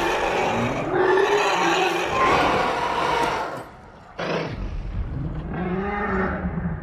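Film sound effects of a dragon roaring: one long roar, then after a short drop a sudden sharp blast about four seconds in, followed by another roar whose pitch rises and falls.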